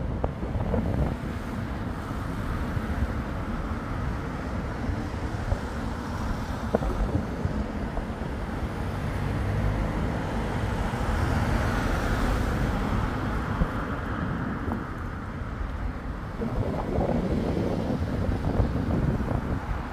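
Wind buffeting the microphone: a low rumbling noise that rises and falls, swelling for a few seconds around the middle.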